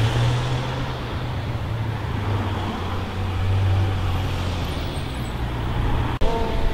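City street traffic: cars, among them a London taxi, driving past close by over a steady low engine drone and road noise.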